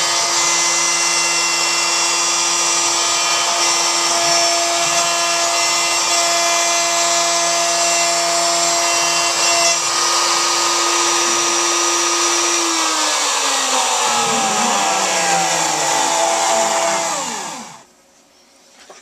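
Router spindle of a homebuilt CNC router running steadily at speed, then switched off about two-thirds of the way in and winding down, its pitch falling until it stops shortly before the end.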